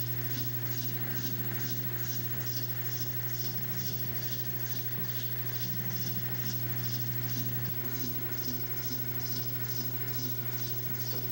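Electric motor of a homemade cat-petting machine humming steadily, with a faint regular ticking from its mechanism about three times a second as the gloved arm strokes the cat.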